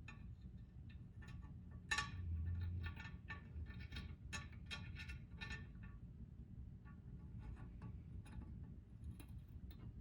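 Light metallic clicks and taps of hand work on a wood stove door's glass and retaining clips, with a sharper knock and a short low thump about two seconds in.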